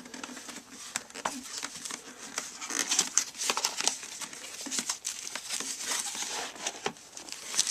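Retail packaging being torn and pulled open by hand: a run of irregular crinkling, rustling and tearing noises.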